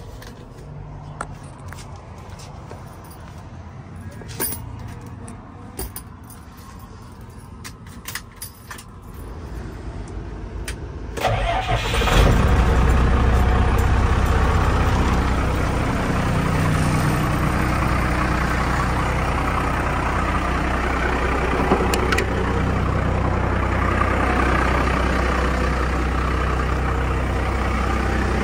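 Ford F800's 5.9 Cummins inline-six diesel cranking and catching about eleven seconds in, then settling into a steady idle. Before the start there are only a few light clicks.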